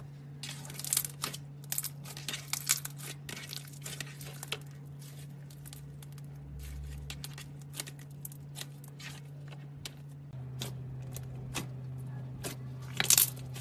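Slime being squeezed and worked, giving irregular crackling and popping clicks, over a steady low hum.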